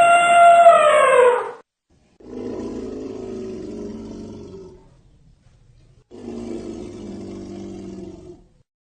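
Elephant calls: a loud, high trumpet that drops in pitch and cuts off about a second and a half in, then two lower, rough roaring calls of two to three seconds each.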